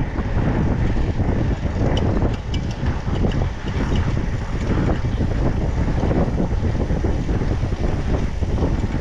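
Wind rushing over the action camera's microphone mixed with the tyre roll of a mountain bike on asphalt, a steady low rumble with a few light ticks.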